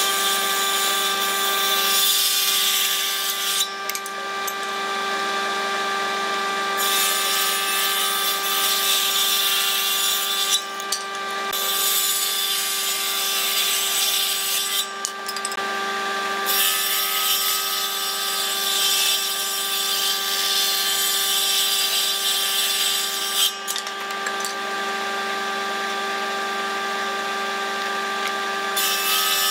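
Table saw running with a steady hum, ripping strips off wooden boards in several passes. The cutting noise rises sharply while the blade is in the wood and drops back to the motor's hum between cuts.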